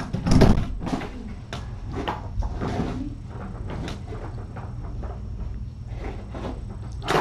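Loud bumps and knocks about half a second in, then lighter scattered clicks and taps over a steady low hum, with another sharp knock at the very end: handling noise in a small room with kittens moving about.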